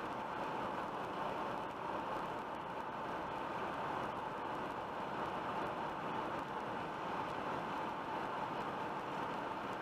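Steady road and tyre noise of a car cruising at about 110 km/h on the motorway, heard from inside the cabin, with no changes in level.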